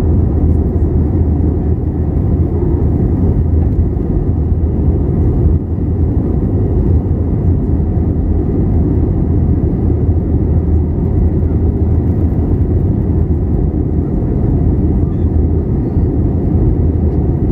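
Airbus A321 cabin noise during the climb after takeoff: the engines at climb power and the rushing air make a loud, steady, deep noise with no let-up.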